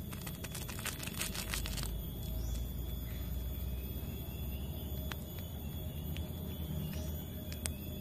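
Plastic instant-noodle seasoning sachet crinkling as it is shaken out over the bowl, a rapid crackle for under two seconds near the start, over a low steady rumble; a few faint ticks follow.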